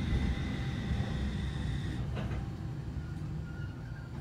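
Sapporo tram 8510-series car with a Mitsubishi IGBT VVVF inverter running: a low rumble of the motors and wheels on rail, with a steady high inverter whine that cuts out about halfway, after which the running noise fades slightly.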